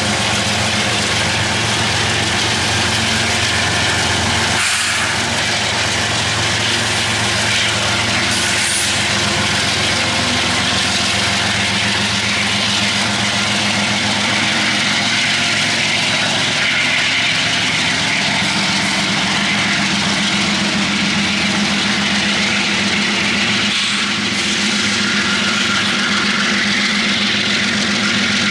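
Freight train with diesel locomotives running close by: a steady engine drone under a wide, even rolling noise.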